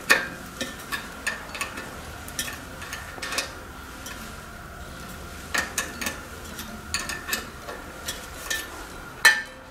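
Small metallic clicks and clinks of a flat wrench working the fixing nut of a GRAPHIS GR-16 children's bicycle front caliper brake as the nut is loosened, with the brake arms held by hand. The clicks come irregularly, with a louder clink right at the start and another near the end.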